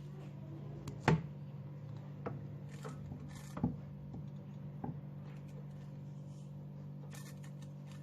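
Tools and parts being handled on a twin-tub washing machine while its spin-tub bolts are fastened: a few separate sharp knocks and clicks, the loudest about a second in, over a steady low hum.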